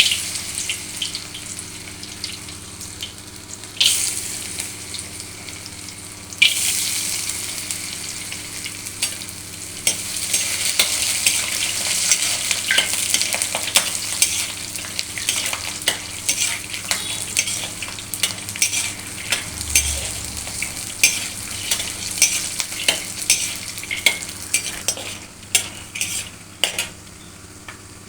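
Food sizzling in hot oil in a pan while being stirred, with frequent short clicks of the spoon or spatula against the pan. The sizzle jumps up sharply at the start and twice more within the first seven seconds.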